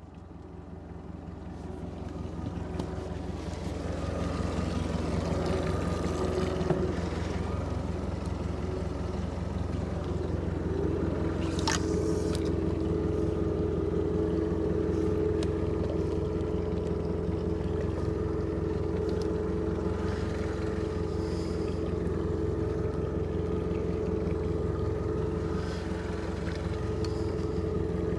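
Boat motor running steadily. It builds over the first few seconds, then holds even, and a steady two-note hum joins it about eleven seconds in.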